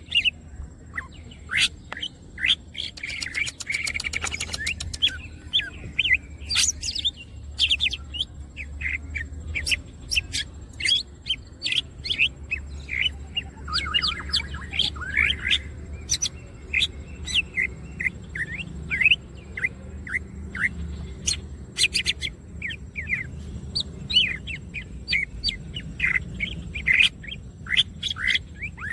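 Cucak ijo (green leafbird) singing constantly in a quick run of short chirps and sweeping whistled notes, with a dense, fast rattling trill about three to five seconds in. A steady low hum runs underneath.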